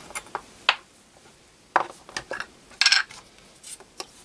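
Small brass fittings of a homemade Heron-type steam engine clinking and knocking as they are handled and set down on a wooden bench: a handful of sharp separate clicks, with a short rattling cluster a little before three seconds in.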